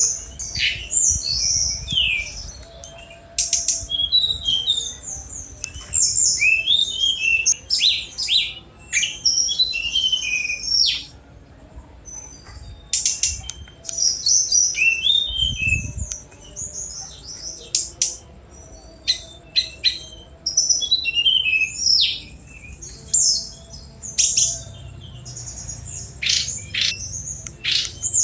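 Tledekan gunung flycatcher singing a fast, varied song of high chips and quick down-slurred whistles, in rapid phrases with brief pauses between them.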